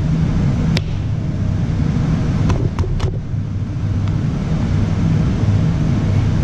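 A steady low mechanical hum, with a few light clicks of small metal pump parts being handled: one about a second in and three close together around three seconds in.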